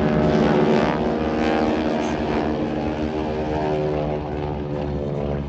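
Radial engines of North American T-6 Texan propeller planes droning past. The sound is loudest about half a second in, then fades slowly.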